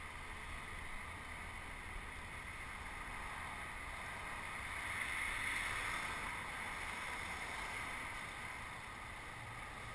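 Steady rushing of wind and tyre noise on the microphone of a camera riding along on a bicycle, over the hum of city traffic; it swells briefly about halfway through.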